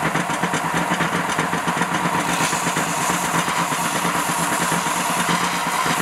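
Bench belt sander running with a steady motor hum and belt noise. The worn brass end of an E61 group's tap pin is pressed against the moving abrasive belt and ground flat, adding a scraping grind that grows stronger about two seconds in.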